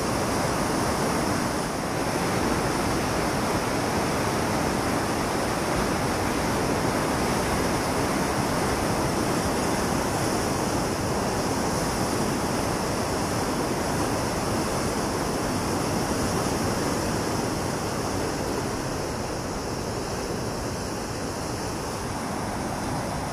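Fast water pouring through a river weir and churning white in the outflow below it: a steady rush, a little quieter near the end.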